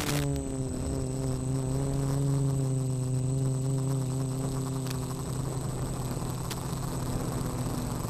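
Small quadcopter's brushless motors and propellers buzzing in flight: a steady many-toned drone that wavers slightly in pitch and grows rougher and noisier in the second half, over a thin constant high whine. A brief crackle right at the start.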